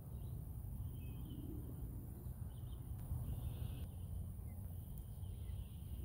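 Outdoor ambience with a steady low rumble underneath, several short bird-like chirping phrases, and a steady high insect hum.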